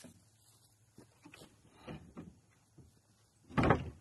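Scattered light knocks, then a short loud clatter about three and a half seconds in, from handling on a wooden board lid.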